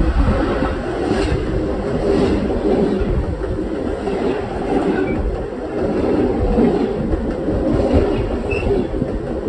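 Train rolling directly over a microphone placed between the rails: a loud, steady rumble of wheels and undercarriage, with occasional clacks of the wheels on the rails.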